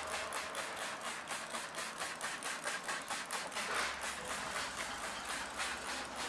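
Hand trigger spray bottle pumped rapidly, about four sprays a second, misting emulsion remover onto the mesh of a screen-printing frame.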